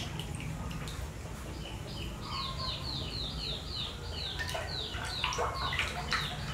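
A rapid run of short, high chirping calls, about four a second, each sliding down in pitch, with water splashing in a plastic basin in the second half.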